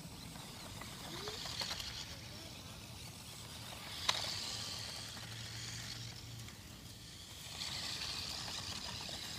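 Toy RC monster truck's small electric motor whirring in spurts, its tyres running over dry grass and pavement, with a sharp knock about four seconds in.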